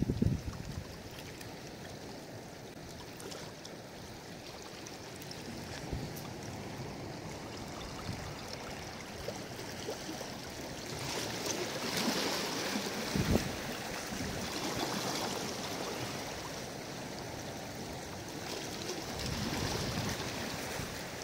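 Small waves lapping and washing at the water's edge, a steady wash that swells somewhat past the middle. A dull knock sounds about two-thirds of the way through.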